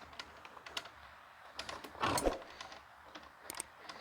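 Scattered light clicks and taps of a screwdriver and plastic vacuum-cleaner housing being handled while Torx screws are taken out, with one louder knock about two seconds in.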